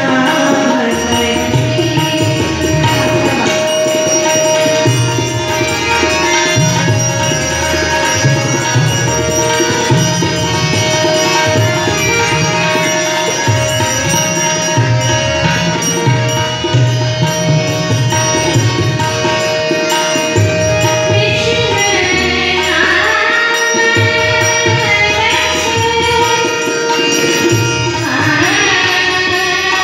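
Tabla playing a steady rhythm with deep bayan strokes under a harmonium's sustained reed tones, in a bhajan accompaniment. A woman's singing voice joins in over them in the later part.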